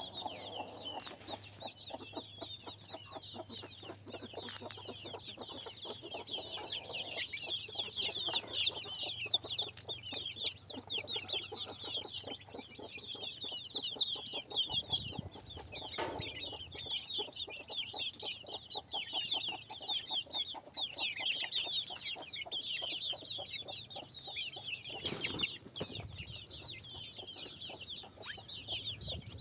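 Chickens clucking, over a dense, continuous chatter of short, high chirps. A few brief low thumps come about halfway through and again near the end.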